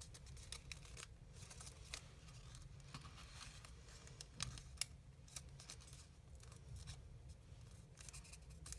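Faint, scattered crinkles and ticks of origami paper being folded up along a crease by hand, over a low steady background hum.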